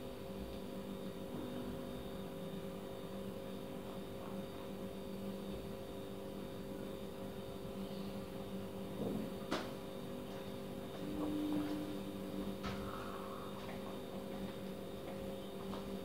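A steady electrical hum with a few faint clicks and knocks, and a short low tone about two thirds of the way through.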